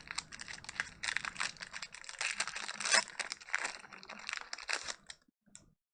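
Foil wrapper of a Pokémon booster pack being torn open and crinkled. The crackling is dense and busy, then stops about five seconds in.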